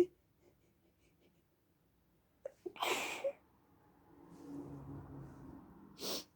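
A person sneezing once about three seconds in, brought on by sniffing perfume they are allergic to, with a couple of quick catches of breath just before it. Breathing follows, and a short sharp breath noise comes near the end.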